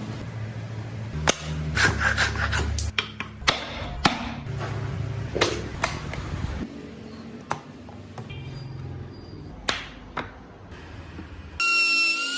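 Hand tools working wood: irregular taps, knocks and scraping strokes over a steady low hum. Pitched music notes come in near the end.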